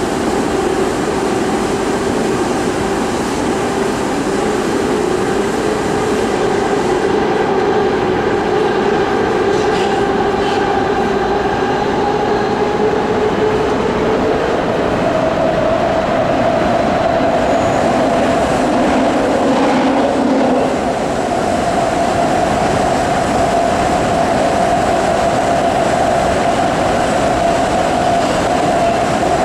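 Inside a moving BART train car: steady running noise of the train on the rails, with a whine that climbs slowly in pitch and then steps up to a higher steady pitch about halfway through.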